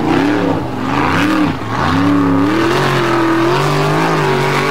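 Competition off-road buggy's engine under load on a steep loose-gravel hill climb. The revs swing up and down about once a second for the first two seconds, then hold nearly steady.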